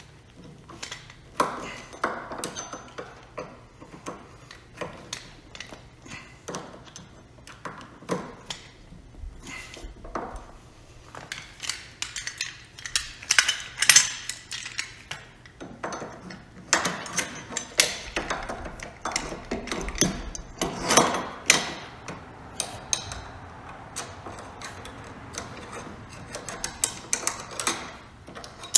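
Irregular metallic clinks, clicks and knocks as a Rockler workbench caster is fitted and worked on its quick-release caster plate, in scattered clusters with the busiest stretch in the middle.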